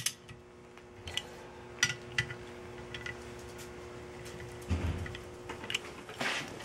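Scattered light metallic clicks and taps as ring gear bolts and a socket are handled on a ring gear and spool in a vise, over a faint steady hum, with a dull knock about five seconds in.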